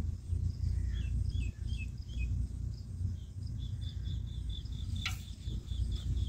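Birds calling: a few short falling chirps, then a quick run of repeated high notes at about three a second, over a low rumble. A single sharp click about five seconds in.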